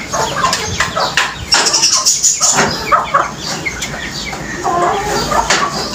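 Pigeons flapping their wings in a wire-mesh cage, in irregular bursts of flaps, with some bird calls mixed in.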